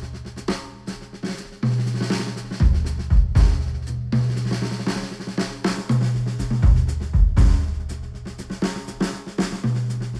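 Instrumental music with a drum kit (snare, kick and hi-hat) over a held bass line, played back through Sennheiser headphones and picked up by microphones.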